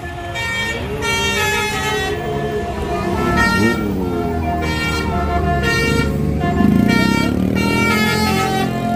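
Bus telolet horn playing a tune, a string of multi-tone air-horn notes changing pitch about every half second, over the bus engine running underneath.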